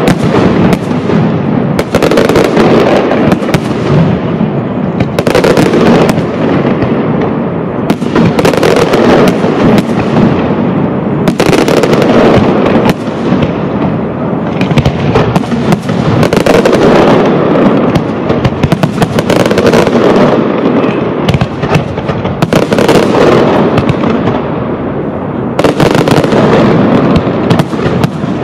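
Aerial firework shells bursting one after another in a castillo display: a loud bang every second or two over a dense, continuous crackle that never lets up.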